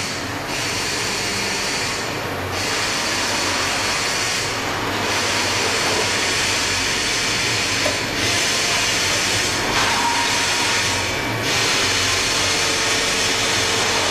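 Steady, loud hissing machinery noise from a steel-beam processing line. The hiss thins briefly several times, and there is a single light knock about eight seconds in.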